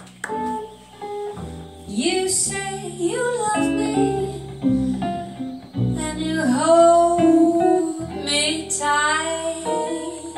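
Jazz trio playing: a woman sings over electric jazz guitar chords and an upright double bass line.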